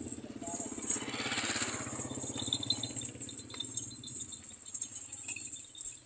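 Goats milling in a pen, their beaded collars rattling and jingling continuously over a steady high hiss, with a louder swell of jostling noise about a second in.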